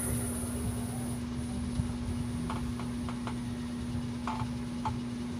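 Steady electrical hum with a low drone underneath, and a few light clicks in the second half as multimeter test probes are handled on the circuit board.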